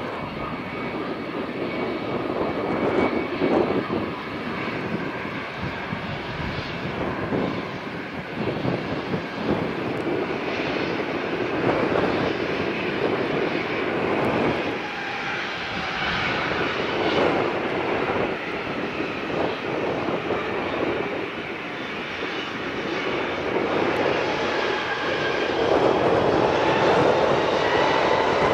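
Airbus A321 jet engines running at a distance as the airliner taxis: a steady rushing noise with a faint whine, growing louder over the last few seconds.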